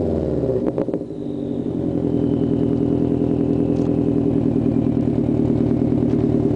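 2008 Subaru WRX's turbocharged flat-four heard at the tailpipes of its aftermarket turbo-back dual exhaust. The revs drop back from a blip over the first second, then it settles into a steady, even idle.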